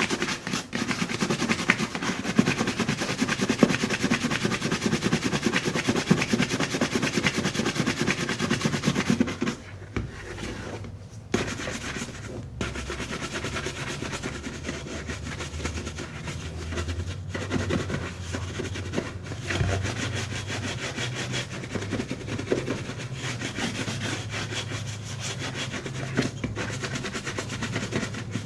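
Horsehair brush stroked rapidly back and forth over a leather boot, buffing in the shoe cream to a shine. The brisk strokes are loudest for the first nine seconds or so, then continue lighter and quieter over a steady low hum.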